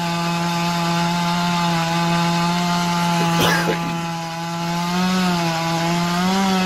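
Chainsaw running at high revs while cutting into a tree, a steady high drone. Its pitch sags briefly twice near the end as the chain bogs in the cut.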